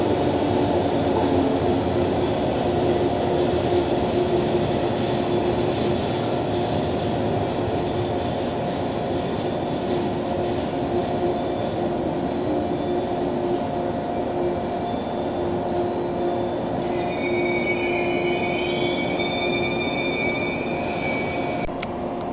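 A JR 115-series electric train on the next track pulling out of the station, its motors and wheels running steadily, with a high wheel squeal in several pitches for a few seconds near the end.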